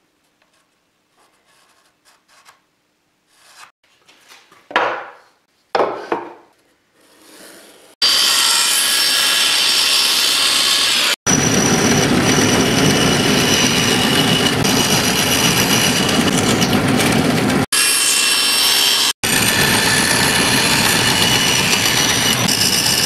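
Quiet handling of a wooden board with a couple of light knocks, then, about eight seconds in, a bandsaw cuts a curve through a pine board: a steady, loud whir of blade in wood, broken twice by brief drop-outs.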